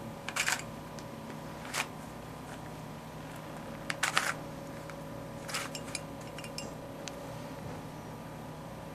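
Sparse short plastic clicks of a Rubik's Cube being twisted, a few single turns and a quick cluster of turns about four seconds in, over a steady low room hum.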